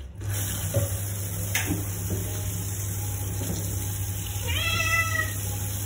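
Handheld shower head spraying water over a wet cat in a stainless steel sink, the spray starting just after the beginning and running on steadily. The cat gives one drawn-out meow a little past the middle.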